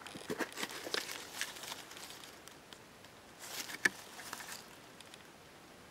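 Light rustling and crackling of leaves and twigs in two spells, the second as a hand pushes ivy leaves aside, with one sharp click in it.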